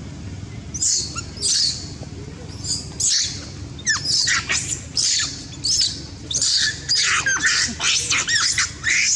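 A macaque screaming in short, shrill, high-pitched cries, over and over, while another macaque pins and wrestles it on the ground. These are distress screams of a female under attack by a dominant male. The cries begin about a second in and come thick and fast from about four seconds on.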